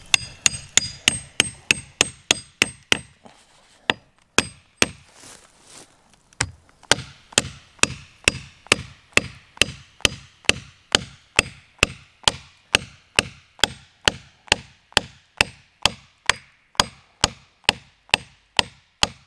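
A hatchet hammering on the spine of a Wolfgangs W1 full-tang knife, metal on metal, driving the blade into a tree trunk. Quick blows at about three a second come first, the first few with a short metallic ring. After a pause with two single blows, a steady run of about two and a half blows a second starts about six seconds in and lasts to the end.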